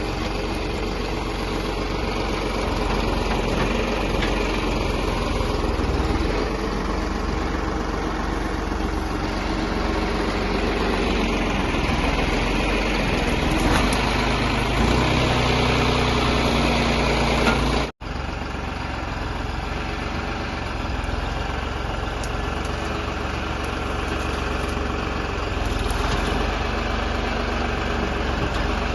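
JCB backhoe loader's diesel engine running steadily, a little louder for a few seconds past the middle, with a momentary break in the sound about two-thirds of the way through.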